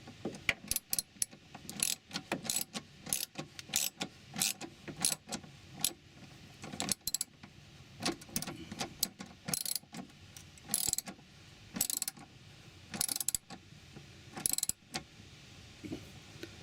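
Ratchet wrench clicking in short, irregular runs as a nut on a battery-tray bracket is tightened down; the clicking stops near the end.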